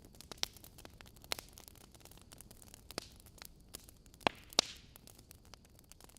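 Wood fire crackling: logs burning with a faint steady hiss and irregular sharp snaps and pops, the loudest two close together about four seconds in.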